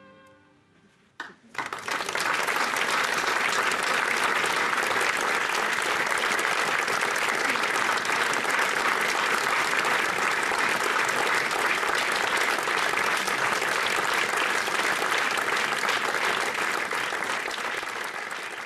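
Audience applauding. After about a second of near quiet, clapping breaks out suddenly and holds as a dense, steady applause, tapering off near the end.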